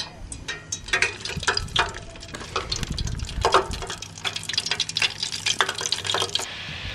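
Battered bluegill deep-frying in a pot of oil on a camp stove: rapid crackling pops and some pot clatter, giving way near the end to a steady sizzling hiss.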